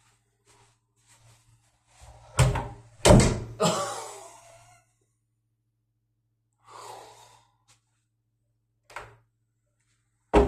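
A door being banged hard through a worn-out Dorma overhead door closer, which the owner thinks has no oil left in it: three loud bangs in quick succession about two to four seconds in, with a ring after them, then a click and another sharp thump near the end.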